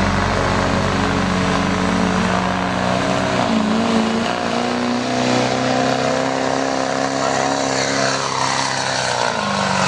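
Engine of a pull vehicle running hard at high, fairly steady revs, with a brief dip in pitch about three and a half seconds in.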